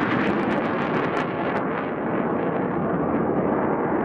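Jet engine noise of an F/A-18 flying away after a low pass: a loud, steady rush with crackling in the first second or so. The high hiss drops away after about a second and a half as the jet recedes.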